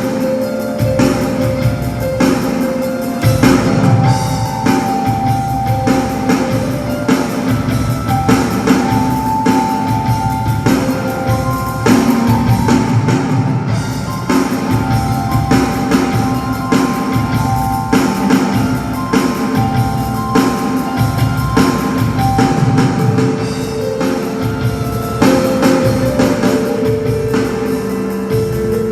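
Instrumental band music with a drum kit keeping a steady beat under guitar and held melody notes.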